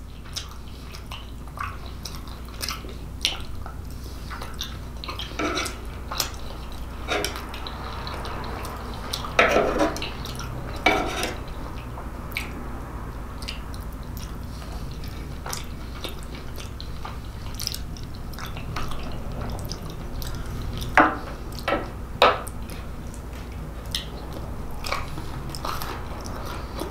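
Close-miked eating of lasagna: knife and fork clicking and scraping as the lasagna is cut, then chewing and wet mouth sounds, with scattered short clicks and a few louder smacks over a steady low hum.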